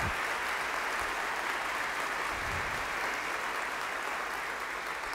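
Congregation applauding steadily in a large church.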